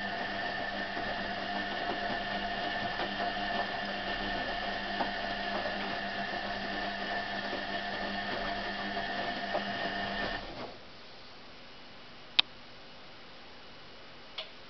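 Hoover A3308 washing machine running with a steady motor whine. It cuts out suddenly about ten seconds in, leaving a low hum broken by two sharp clicks.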